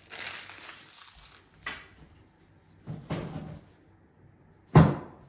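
Paper sachet of baking powder rustling as it is emptied into a mixing bowl, followed by a few brief rustles of handling and one sharp, loud knock near the end.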